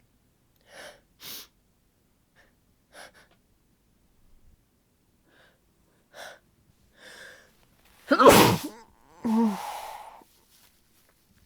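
A woman with a congested head cold takes several short gasping breaths, then sneezes loudly about eight seconds in, followed by a softer voiced exhale.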